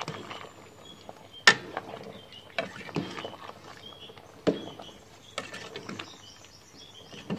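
Metal ladle stirring a pot of simmering curry, knocking and scraping against the side of the aluminium pot about once a second at uneven intervals.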